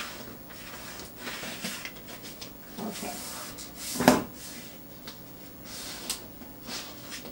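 Hands rustling stiff paper and handling it inside a wooden lantern, with light clicks and one sharp knock against the lantern's frame about four seconds in.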